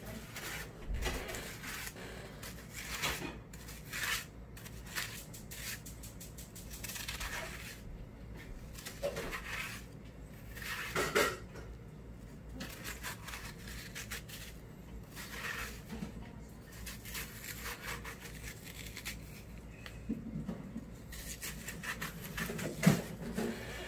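A kitchen knife cutting through watermelon flesh down to a wooden cutting board, a run of short irregular strokes and scrapes as the wedge is scored into cubes; the loudest stroke comes a little past the middle.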